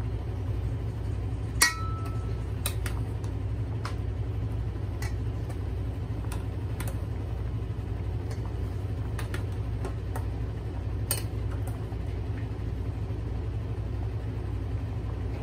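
Metal spoon clinking against the rim of a steaming pot and an aluminium strainer bowl as soft boiled tomatoes are lifted out one at a time, a dozen or so scattered clinks; the sharpest, ringing one comes about one and a half seconds in. Under it, a steady low rumble from the pot on the gas stove.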